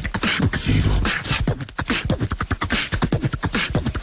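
Rapid vocal percussion like beatboxing: fast clicks, puffs and short voiced notes in a steady rhythm.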